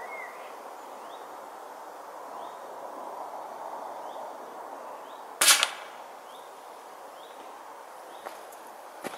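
A single shot from a Cometa Orion Bullpup Mini pre-charged air rifle, one sharp crack about five seconds in, fired at a woodpigeon in a fir tree at about 25 yards.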